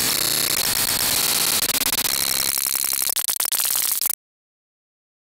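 Static-like, hissing logo intro sound effect that flutters rapidly in its last second or so, then cuts off suddenly about four seconds in, leaving digital silence.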